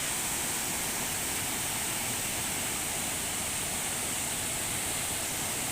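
Waterfall: a steady rush of falling water with no breaks or changes in level.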